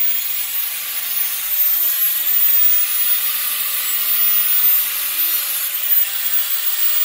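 Parkside angle grinder with a diamond cut-off wheel running at full speed and grinding into a steel hoe head, a steady loud hiss over a high motor whine, swelling slightly as the wheel bites. The hoe head is untempered steel, so it is being ground without stopping to cool it.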